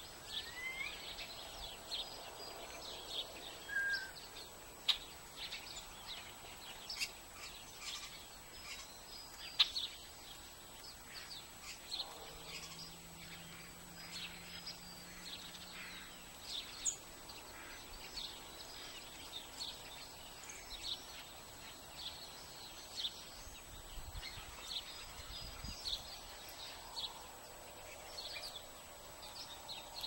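Small songbirds chirping: many short, high chirps, scattered and sometimes overlapping. A faint low hum comes in for a few seconds in the middle.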